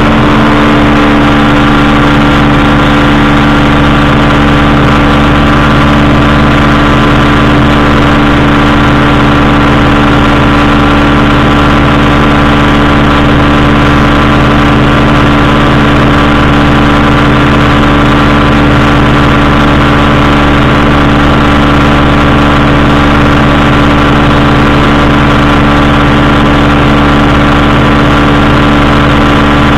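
Powered parachute's engine and propeller running steadily in level flight, loud and holding one unchanging pitch.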